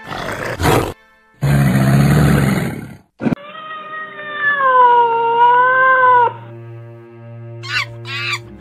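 A crocodile's hissing growl in two loud bursts, then a long, drawn-out cat meow that wavers in pitch, all over steady background music. Short repeated animal calls begin near the end.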